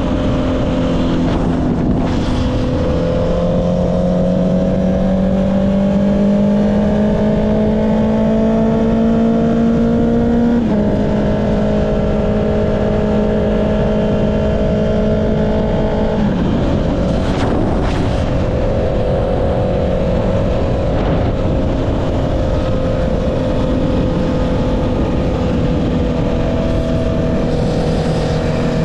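Honda CB650R's inline-four engine through an Akrapovic exhaust, under way at steady cruising revs with a constant rush of wind noise. The engine note climbs gradually, shifts up once about eleven seconds in, holds steady, wavers briefly around seventeen seconds, then slowly falls as the bike eases off.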